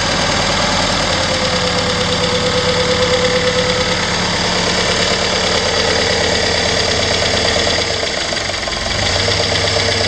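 Freshly rebuilt Willys F134 F-head four-cylinder engine running steadily on its first start after the rebuild. Its note dips briefly about eight seconds in.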